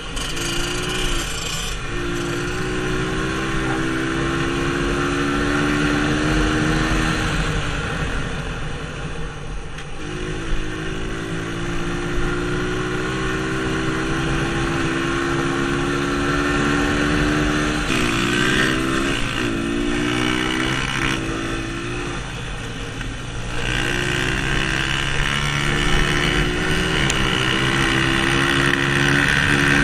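Dirt bike engine lapping a dirt short track, held steady on the straights and backing off twice for the turns, with a few quick rises and falls in pitch partway through, over a continuous rushing noise.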